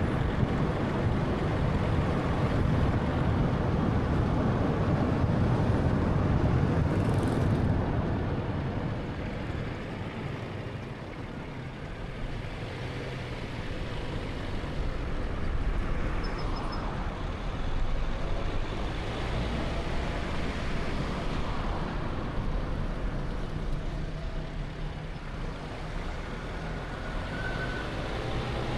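A car's steady road and engine noise while driving in traffic. It is louder at first, drops quieter about a third of the way in, then builds back up.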